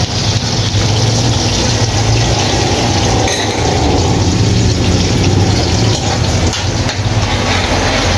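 Chopped garlic and onion sizzling in hot oil in a steel wok, a steady frying hiss over a low hum.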